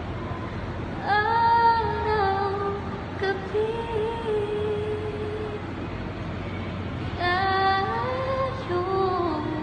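Woman singing a slow ballad in long, wavering held notes, in three phrases with short breaks between them.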